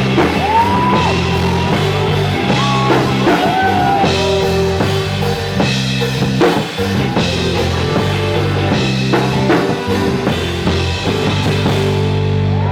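Live rock band playing electric guitars, bass guitar and a drum kit, with sustained distorted chords over steady drum hits. The cymbals drop out near the end while a final chord rings on.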